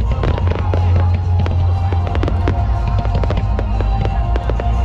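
Aerial fireworks bursting in a dense, continuous run of bangs and crackles, with music playing underneath.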